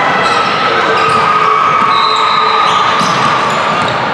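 Basketballs bouncing on a gym floor over the steady background noise of a large gym, with a brief high squeak about halfway through.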